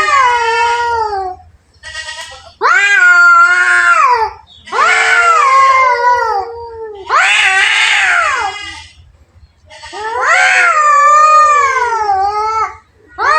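Two cats caterwauling at each other in a fight standoff: a run of long, wavering yowls, each a second and a half to two and a half seconds long, with short pauses between them.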